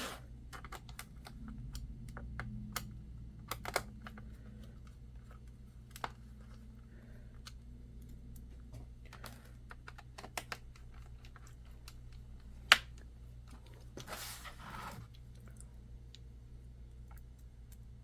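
Scattered small clicks and taps of screws and a screwdriver on a laptop's plastic bottom cover as it is screwed back together, with one sharp click about two-thirds of the way through and a short rustle of handling just after it.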